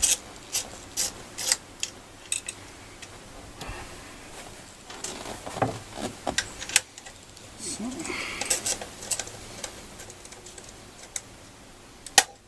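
Scattered light metallic clicks and clinks of a 10mm socket wrench working the bolts of a flame arrestor bracket, at irregular spacing, with a sharper click near the end.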